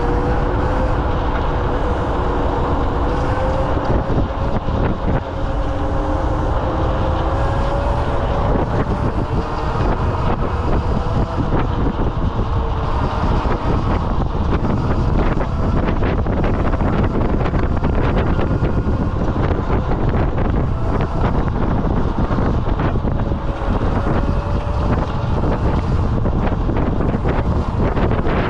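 Wind buffeting the microphone and tyre rumble from an electric scooter riding along a road, with small knocks from bumps. A faint whine, most likely the scooter's motor, rises a little in pitch over the first several seconds and comes back faintly later on.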